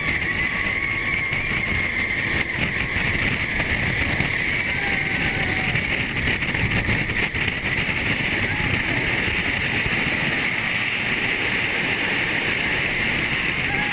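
Roller coaster ride heard from a hand-held camera: steady wind rush on the microphone over the train's running noise on the track, with a rider's long held scream over the first few seconds and shorter shouts about five seconds in and near the end.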